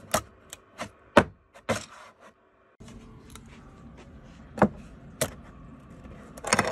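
Sharp clicks and knocks of 3D-printed plastic frame rails being handled and fitted onto an art board. There are several in quick succession at first, two more spaced out a few seconds in, and a busier run of clatter near the end.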